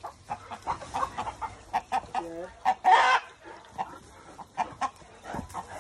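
Chickens clucking in many short notes, with a louder, harsh burst about three seconds in.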